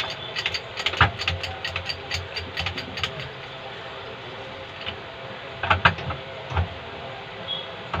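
Homemade bottle-jack hydraulic press being worked by hand: a fast run of sharp metallic clicks, about four a second, stops about three seconds in. A few scattered clicks and knocks follow, over a steady machine hum.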